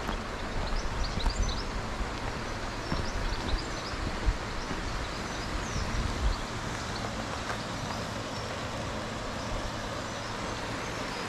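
Steady rushing outdoor background noise, with footsteps thudding on the towpath through the first half and a few short high chirps.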